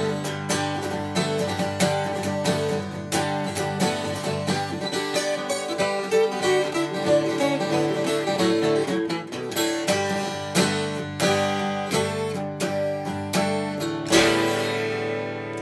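Acoustic guitar improvisation: quick picked notes and strums over held chords. A loud strummed chord about fourteen seconds in is left to ring out and fade.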